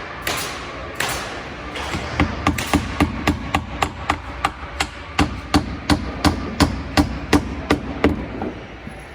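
Hammer driving nails into wood framing: a few spaced strikes, then a fast steady run of about three blows a second, each with a short ringing note, stopping near the end.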